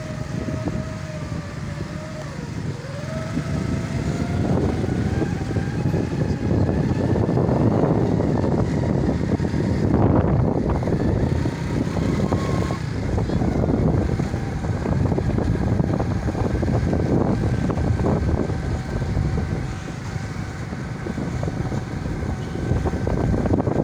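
A vehicle driving along a street, its engine and road noise running steadily, with wind buffeting the microphone.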